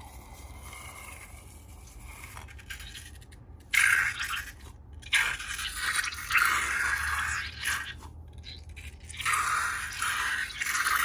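Scraping and crackling noises in irregular bursts, starting about four seconds in.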